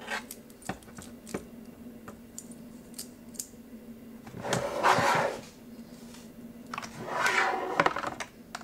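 Metal saw-chain links clicking and rattling as a 52-link chain is fitted around the guide bar of an Echo CS-353ES chainsaw. Two louder scraping rattles come about halfway and near the end.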